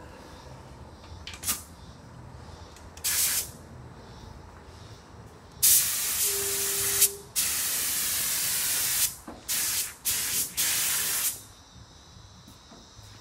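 Compressed-air paint spray gun hissing in bursts as paint is sprayed onto a car panel: two short blasts in the first few seconds, then a string of longer passes lasting up to about two seconds each from about halfway through.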